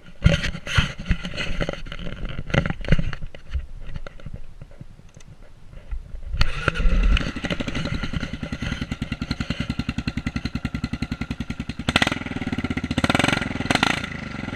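A few irregular knocks and clicks, then a 2008 Kawasaki KLR650's single-cylinder four-stroke engine, fitted with an aftermarket CZR muffler, starts suddenly about six seconds in and settles into an even, fast-pulsing idle. Near the end it is revved briefly twice.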